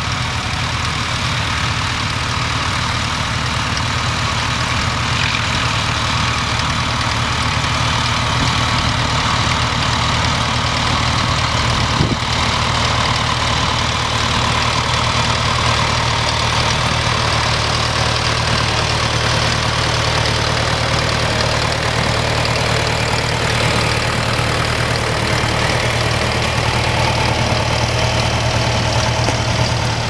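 Ferguson 35 tractor engine running steadily under load as it pulls a plough through stubble.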